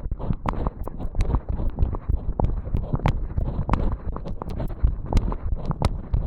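Fast heartbeat picked up against the chest over the mitral valve area after jogging up stairs. Low thumps are buried under frequent rubbing and irregular sharp clicks from movement against the chest piece.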